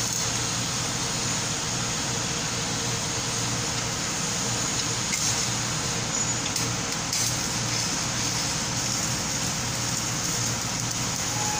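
Stick welding: the electrode arc gives a steady crackling hiss, over a steady low machine hum.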